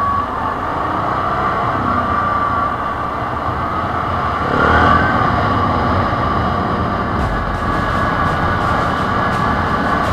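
Quad bike (ATV) engine running under way with a steady high whine; it revs up briefly about halfway through. Light ticking comes in over the last few seconds.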